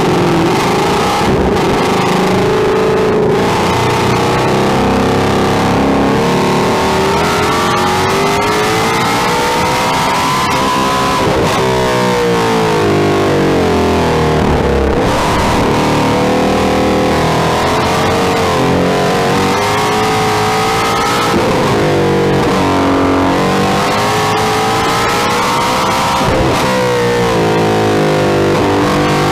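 Sports car engine at full effort on track, its pitch climbing for several seconds and then dropping away again and again as it accelerates and slows for corners, over steady tyre and road noise.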